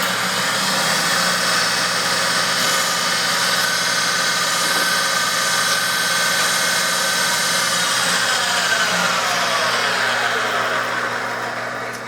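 Sharp VH-3 milling machine's spindle and gear drive running steadily with a mix of whining tones, then switched off about eight seconds in and winding down, its whine falling in pitch as it coasts to a stop.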